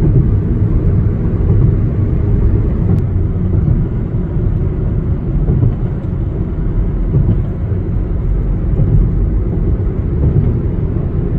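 Steady low rumble of road and engine noise inside a car's cabin while driving at highway speed.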